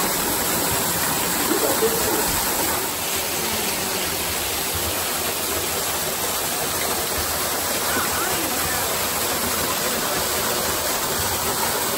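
Steady rush of running creek water, like a small waterfall or rapids.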